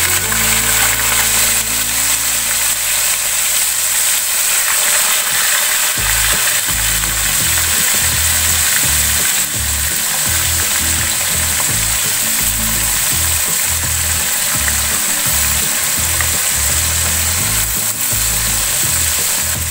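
Fish pieces deep-frying in hot oil in a pan: a steady, dense sizzle. Background music plays underneath.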